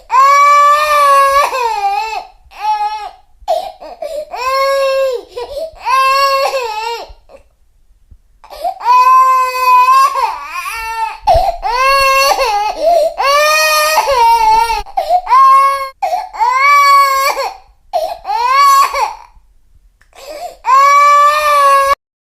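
Baby crying: about a dozen long, high-pitched wails, each a second or two long, broken by short pauses for breath. The crying cuts off suddenly near the end.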